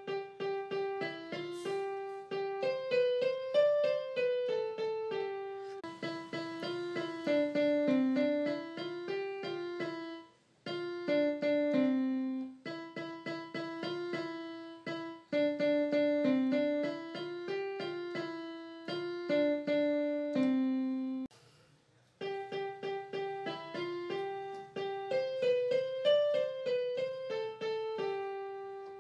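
Background piano music: a light melody of separate notes, with two brief pauses, about ten and twenty-one seconds in.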